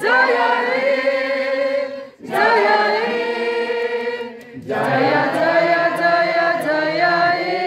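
A group of voices singing together in long held notes, in phrases broken by short pauses about two seconds and four and a half seconds in.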